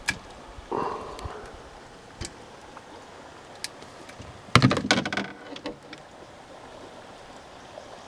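Scattered light clicks and knocks, then a loud clatter of knocks and rattles about halfway through, as a sunfish hooked on a crankbait is swung into a canoe and handled with pliers.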